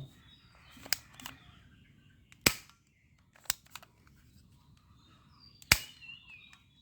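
Toy gun firing: two sharp, loud shots about three seconds apart, with a few lighter clicks around them.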